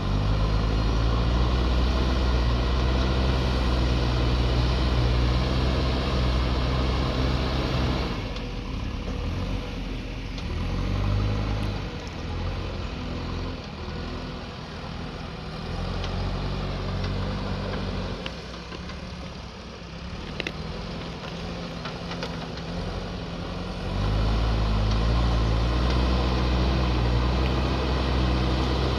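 JCB backhoe loader's diesel engine working. It runs louder and heavier for about the first eight seconds, eases to a lighter, quieter note, then comes back up to the heavier sound about twenty-four seconds in.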